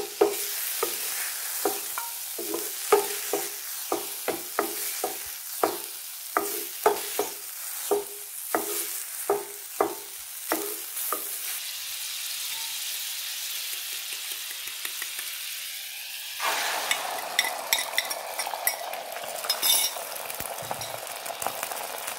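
Wooden spatula knocking and scraping against a ceramic-coated frying pan as sliced mushrooms are stirred, over a steady sizzle. The knocks stop and hot fat sizzles on its own. About two-thirds through, beaten eggs hit the hot pan and the sizzle jumps louder, with crackling.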